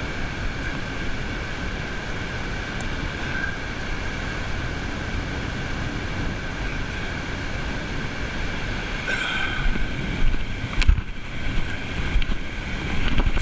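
Wind buffeting the microphone in a steady low rumble, with small waves washing on the shore, growing louder and more uneven near the end; a sharp knock about eleven seconds in.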